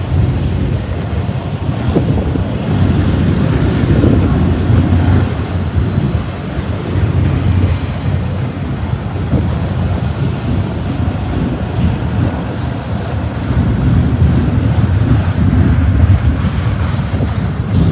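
Double-stack intermodal freight train's container well cars rolling past, a loud, steady low rumble of steel wheels on the rails.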